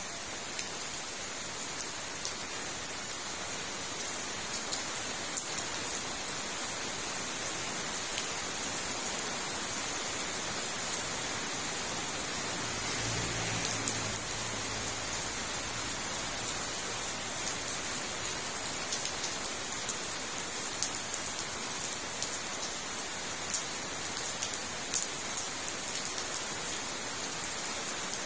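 Steady rain falling on a fish pond and the plants around it: an even hiss with frequent single drops ticking close by. About halfway through, a faint low hum rises briefly beneath the rain.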